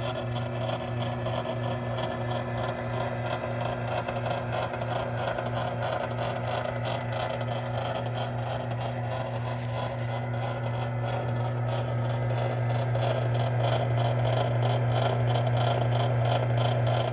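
Vevor 038-MDA electric wire stripping machine running, a steady motor hum under a fast, regular rattle. It stops abruptly at the very end.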